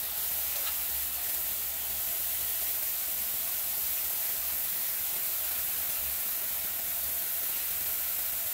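Kitchen faucet running steadily, its stream falling onto chopped collard greens in a stainless steel sink: an even, unbroken hiss of water.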